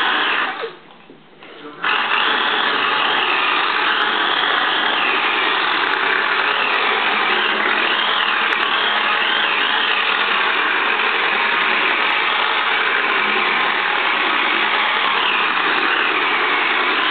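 Small electric motor and gears of a radio-controlled toy car whirring steadily, its whine rising and falling in pitch as the throttle changes. A short burst of the same sound right at the start, then it runs continuously from about two seconds in.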